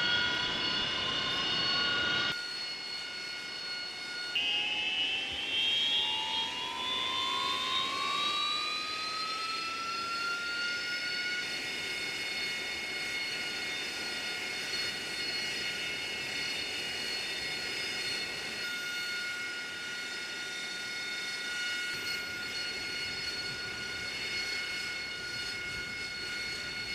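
AV-8B Harrier II jet engine whining on the ground, a set of steady high tones. A few seconds in the whine climbs steadily in pitch for several seconds as the engine spools up, then holds steady.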